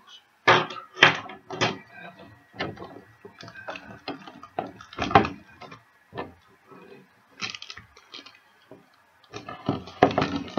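Stiff clear plastic blister packaging being handled and pulled apart: irregular crackles, clicks and knocks, loudest about half a second in, again around five seconds and near the end.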